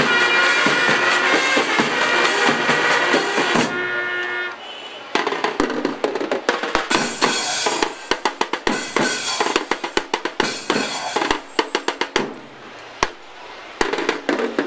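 Marching brass band playing held notes that end about four seconds in, then the drum line takes over with a rapid snare and bass drum cadence, dropping out briefly near the end before coming back in.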